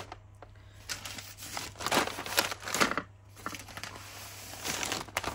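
Brown paper Amazon mailers crinkling and rustling as they are handled and laid down, in irregular bursts, loudest about two to three seconds in.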